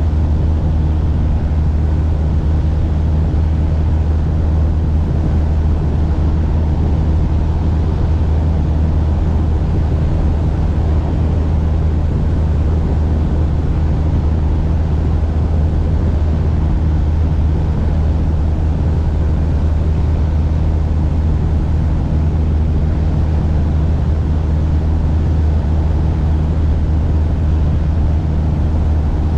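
Steady drone of a single-engine Cessna's piston engine and propeller in level flight, a loud, unchanging low hum heard from the cabin.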